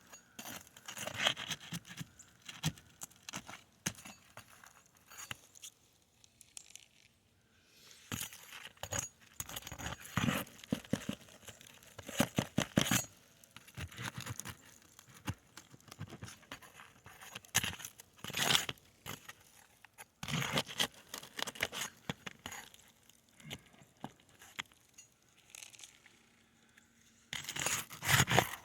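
Hand tools prying, scraping and tapping at Atlas Chalet asphalt roof shingles as a three-tab shingle is worked loose, in irregular bursts of sharp clicks and scrapes with short pauses between. The shingle tabs slapping about shed loose granules that rattle down.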